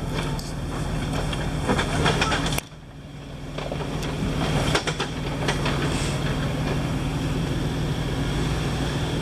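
Off-road vehicle engine running steadily, with scattered knocks and clanks over it. The sound drops away suddenly about two and a half seconds in, then builds back up over about a second.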